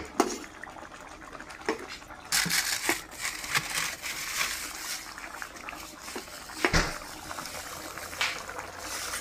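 Metal ladle stirring thick coconut-milk green curry with pork in a coated pan, the curry sloshing, with a few knocks of the ladle against the pan. From about two seconds in, a steady hiss of the curry simmering.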